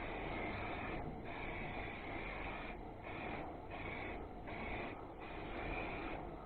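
Aerosol spray paint can hissing in a run of short sprays, with brief breaks between strokes, as a message is sprayed onto a garage door.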